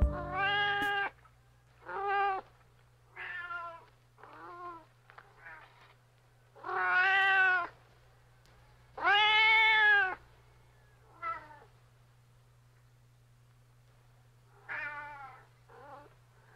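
Domestic cat meowing, about a dozen separate meows of varying length with pauses between them. The two longest and loudest come in the middle. A faint steady low hum runs underneath.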